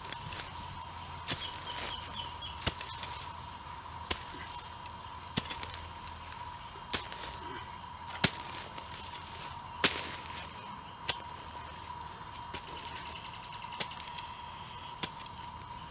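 Hoe blade chopping into dry ground, about a dozen sharp blows, one every second and a half or so, stripping off the top layer of soil.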